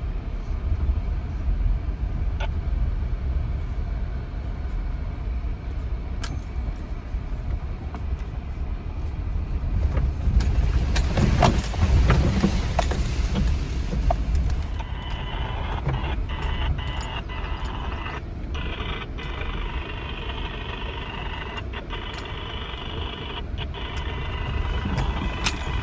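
Inside the cabin of a 2019 Subaru Forester driving on a rough dirt trail: a steady low rumble from engine and tyres, broken by frequent short rattles and knocks over the bumps, loudest a little before halfway. A steady higher hiss joins in about halfway through.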